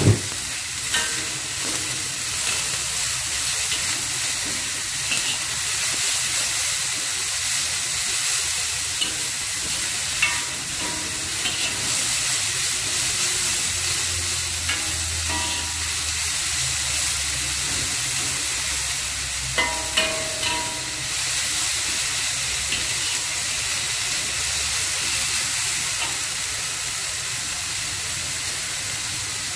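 Shredded cabbage and carrots sizzling steadily in a hot wok while being stir-fried with a metal spatula, which scrapes and clinks against the pan a few times.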